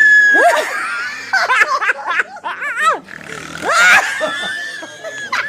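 Squeaky, helium-raised laughter and hiccuping yelps from a woman who has breathed in helium. The pitch sweeps up and down in short wavering bursts, and the loudest comes about four seconds in.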